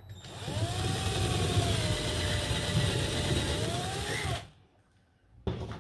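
Ozito cordless impact driver running under load, drilling a starter hole for a screw through a thin metal shroud into a timber cover. Its motor whine climbs as it starts, sags and climbs again, then cuts off suddenly after about four seconds.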